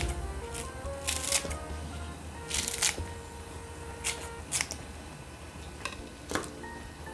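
Kitchen scissors snipping through a thick green onion stalk: several sharp cuts, roughly a second or so apart. Soft background music plays underneath.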